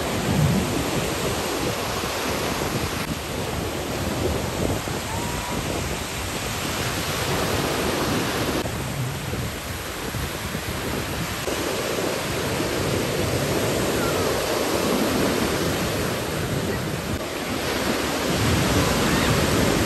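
Ocean surf washing onto a beach, a steady rushing noise that shifts in character a few times, with wind buffeting the microphone.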